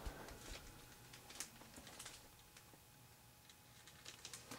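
Faint steady hum of a 1980s ceiling fan's motor running in reverse, with a few faint light ticks.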